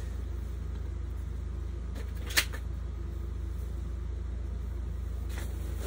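Steady low hum of room background, with one sharp plastic clack about two and a half seconds in and a couple of fainter knocks as VHS tape cassettes are handled and set down.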